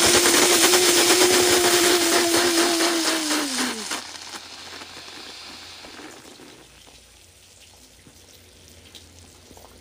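Cola foaming violently inside a plastic bottle after a candy drop, a dense fizzing hiss held in by a mouth over the neck, with a steady hum over it that slides down and stops about four seconds in. The fizzing then dies away to a faint hiss.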